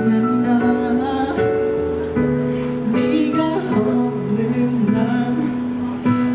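A man singing live into a microphone, holding and bending long notes over an instrumental accompaniment.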